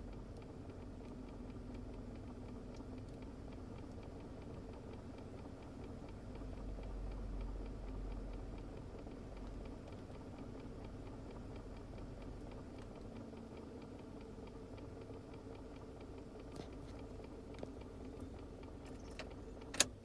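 Car air conditioner running with a steady hum and a regular ticking, the abnormal noise coming from the air conditioner. Near the end a sharp click as the system is switched off.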